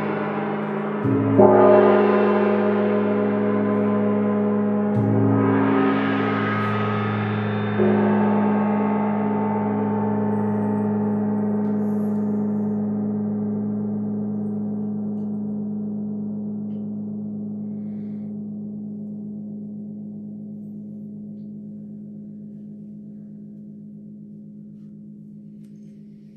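A large gong struck with a mallet about three times in the first eight seconds, each stroke swelling into a shimmering, wavering wash of overtones. It is then left to ring and slowly dies away.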